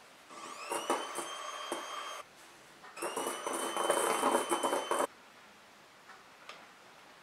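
Electric hand mixer beating egg whites and sugar into meringue in a stainless steel bowl. The motor runs twice for about two seconds each time, each run starting with a rising whine as it spins up and then holding a steady whir, and the second run is louder. There are a few clicks of the beaters against the bowl during the first run.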